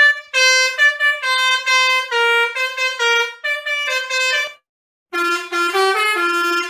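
A telolet bus-horn tune on reedy, horn-like notes: two quick phrases of stepping notes, the second lower, with a short break about four and a half seconds in.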